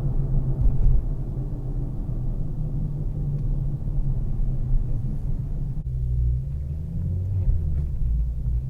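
A turbocharged car's engine and road rumble while driving, a steady low drone. About six seconds in the engine note changes abruptly, as at a gear change or lift-off, and the low rumble deepens after it.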